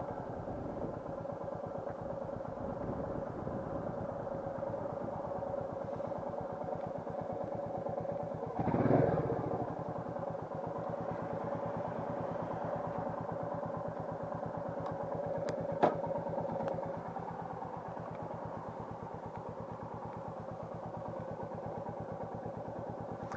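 Royal Enfield Meteor 350's single-cylinder engine running steadily as the motorcycle is ridden, with a brief louder swell about nine seconds in and a single sharp click around sixteen seconds.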